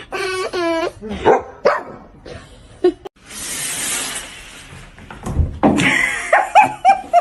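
A pet animal's vocal calls: pitched, bending cries in the first second, then a stretch of hissing noise, then a quick run of short repeated calls near the end.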